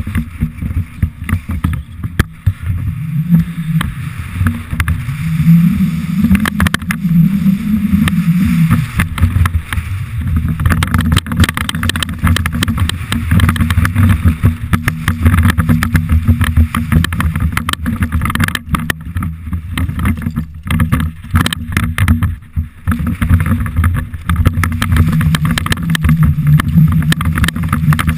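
Heavy wind rumble on a helmet-mounted camera's microphone during a fast downhill mountain-bike descent, with the rattle and knocks of the bike and its tyres over loose rocky gravel.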